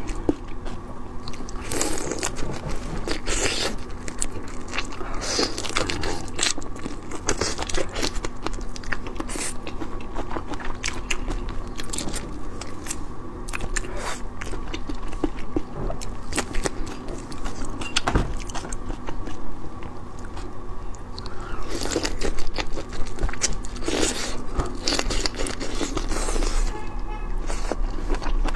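Marinated raw shrimp being pulled apart and eaten by hand, picked up close by a clip-on microphone: shells cracking and crackling in irregular clicks, with wet chewing.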